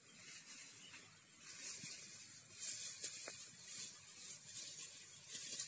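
Rustling and crackling of someone walking through ferns, grass and dry fallen palm fronds. It is faint at first and grows louder about a second and a half in, with an irregular run of crisp crackles over a steady high hiss.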